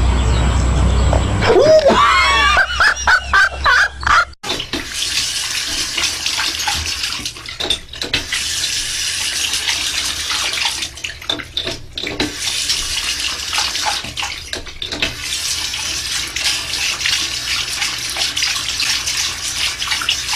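Water running steadily from a tap, as into a sink or bathtub. In the first few seconds there are a few short squeaky sounds that rise and fall in pitch.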